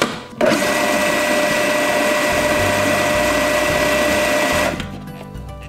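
Countertop food processor motor running steadily with a constant whine as it blends hummus. It starts about half a second in and runs down and stops near the end.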